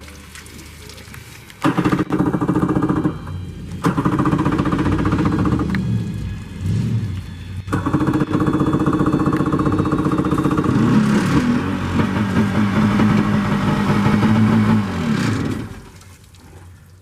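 1993 Yamaha VXR jet ski's two-stroke engine starting and running: it catches suddenly, cuts out briefly twice, is revved up and down, holds a steady speed, then winds down and stops near the end. The jet ski now runs after failing to start.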